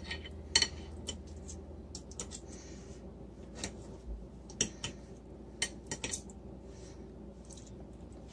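A metal fork clinking and scraping on a plate as it cuts a bite from a slice of lasagna: a scattering of sharp clicks, thicker in the first second and again around four to six seconds in.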